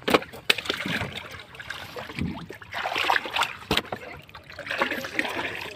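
Shallow water splashing and sloshing in irregular bursts as a person wades and moves a loaded plastic basin through it, with a few sharp knocks.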